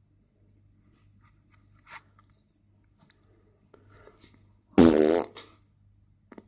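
A loud fart sound: one buzzing blast lasting about half a second, about five seconds in. Faint clicks and rustles come before it.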